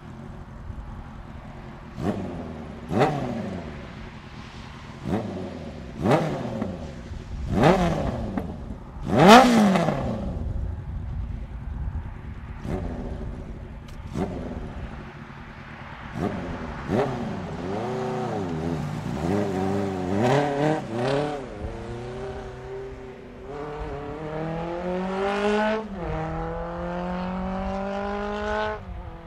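1980 Honda CB750C's air-cooled DOHC inline-four through a Carpy's 4-into-1 exhaust: about half a dozen sharp throttle blips, the sixth and loudest near nine seconds in. Then the bike pulls away and accelerates up through the gears, the pitch climbing and dropping at each shift.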